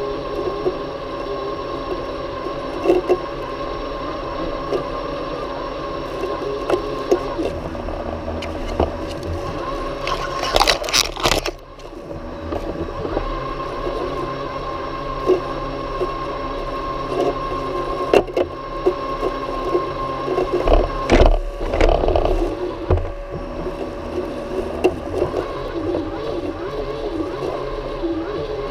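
Worx Landroid M robotic lawn mower running, with a steady hum from its motors and scattered clicks, knocks and scrapes as it rolls over the grass. A burst of loud rattling comes about ten seconds in, followed by a brief dip in the hum, and there is more knocking a little after twenty seconds.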